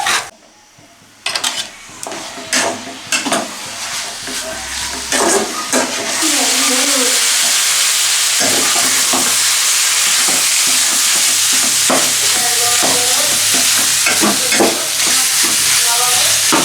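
Marinated chicken pieces frying in a pan while being stirred: scattered clatter of the stirring spoon, then from about six seconds in a steady loud sizzle.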